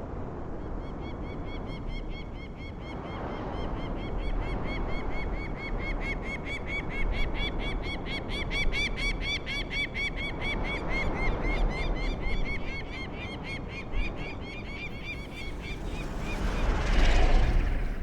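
A bird calling in a fast, even string of short rise-and-fall notes, about five a second, over a low steady wind-like rumble. Near the end a whoosh swells and cuts off.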